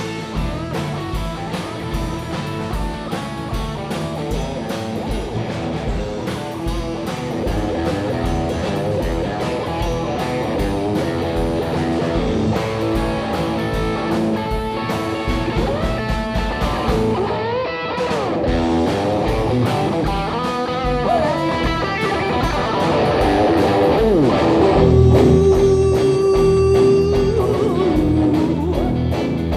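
A live rock band playing an instrumental passage: electric guitars over bass guitar and a steady drum-kit beat. The guitar lines slide up and down in pitch a little past halfway, and a long held note rings out near the end.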